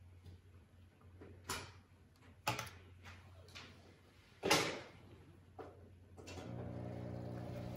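A few knocks and clicks of handling, the loudest about four and a half seconds in. Then a small aquarium-style air pump switches on about six and a half seconds in and runs with a steady buzz, pushing air through the air stone.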